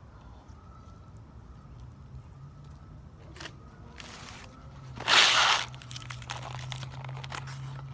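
Paper fast-food packaging crinkling and rustling as it is handled, with one loud rustle about five seconds in, over a steady low hum.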